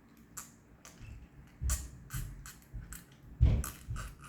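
Crunchy chewing of crispy fried chicken, a run of irregular crackling bites and chews with a couple of louder crunches.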